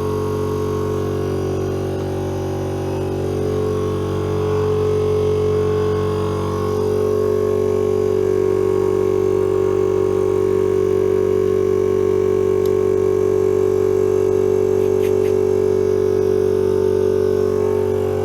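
Oil-lubricated piston air compressor running with a steady droning hum, growing a little louder a few seconds in, with a couple of faint ticks later on.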